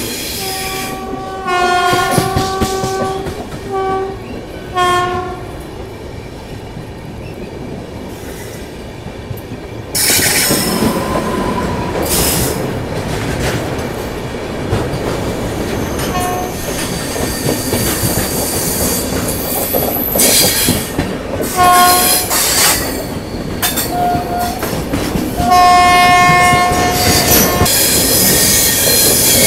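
A train horn sounds again and again, a long blast followed by short toots and another long blast near the end, over the steady rumble and clatter of a running train. The running noise grows much louder about a third of the way through.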